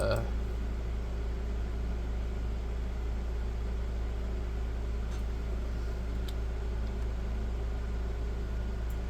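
Steady low hum with an even background noise, broken by a few faint clicks.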